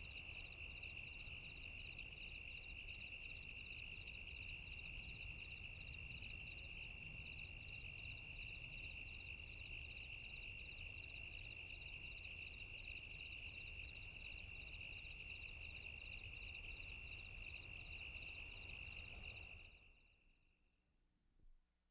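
Chorus of crickets chirping steadily at several pitches, some in fast pulsed trills and some in longer chirps, over a faint low rumble; it fades out near the end.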